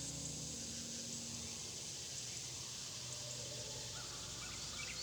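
Quiet outdoor nature ambience: a steady high insect hiss, with a few short bird chirps from about four seconds in.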